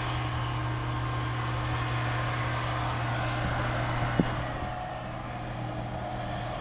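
Combine harvester running with a steady low drone, with one sharp click about four seconds in, after which the sound eases slightly.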